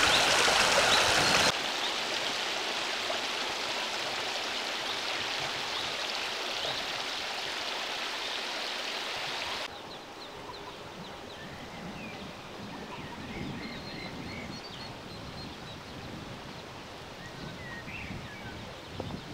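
Steady rushing noise of flowing water, dropping in level about a second and a half in and again about halfway through. In the quieter second half come faint, short, high peeps from mallard ducklings.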